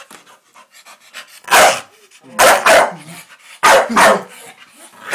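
Staffordshire bull terriers barking in rough play, about five loud barks from a second and a half in, mostly in quick pairs, with quieter panting between.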